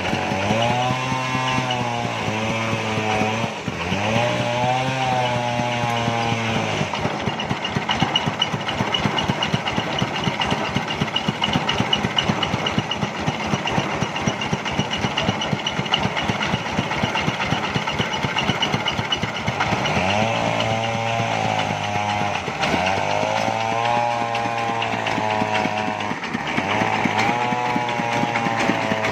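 Engine-driven saw of a portable sawmill ripping timber. The engine note sags and recovers several times as the blade takes load, with a steadier, harsher cutting stretch in the middle.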